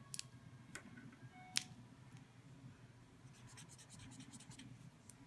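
Pen scratching on spiral-notebook paper in a run of quick strokes from about three seconds in, circling an answer. It follows a few sharp clicks in the first second and a half, the loudest about a second and a half in.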